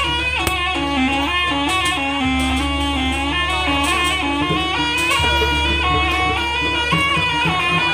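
Live jaranan gamelan music: a shrill reed pipe (slompret) plays the melody over drum strokes, with a deep gong note sounding about every three seconds.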